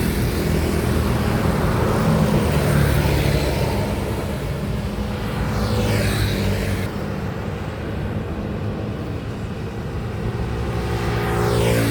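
Highway traffic of trucks and other heavy vehicles passing close by: steady engine drone and tyre noise, with a vehicle going past about halfway through and another near the end, its pitch falling as it passes.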